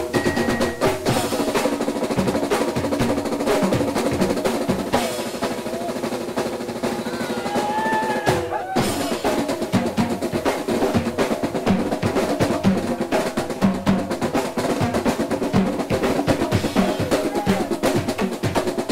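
A percussion ensemble playing fast with drumsticks on harnessed marching snare and tenor drums and plastic barrels: dense rolls and driving rhythms, with a brief stop about eight and a half seconds in.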